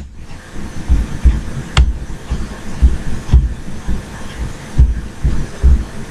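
Dull, deep thumps at irregular intervals, about one or two a second, with a single sharp click about two seconds in.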